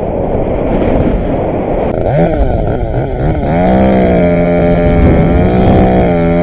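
A chainsaw revving: its pitch rises several times from about two seconds in, then holds steady. Heavy wind buffets the microphone throughout.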